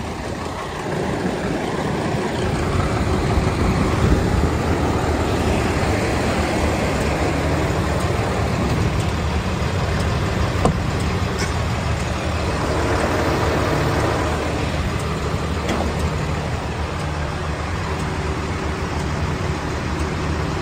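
Heavy truck's diesel engine running steadily, a low hum.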